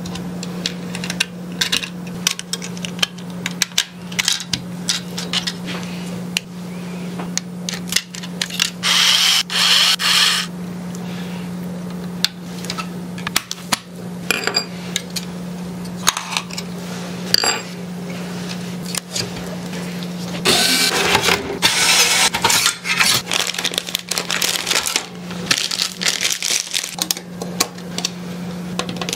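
Hands assembling a small desktop PC: repeated clicks, taps and light clatter of metal and plastic parts, with longer spells of scraping and rustling about nine seconds in and again around twenty-one seconds in, over a steady low hum.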